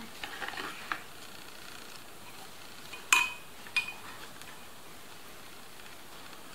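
A spoon clinking and tapping against a bowl while stirring water: a few soft taps in the first second, then two sharper clinks with a brief ring about three and four seconds in.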